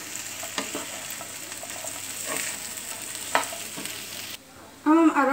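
Spatula stirring fried potato strips in chilli sauce in a kadhai over the heat. There is a steady sizzle with scattered scrapes and knocks of the spatula against the pan, and the sound cuts off suddenly about four seconds in.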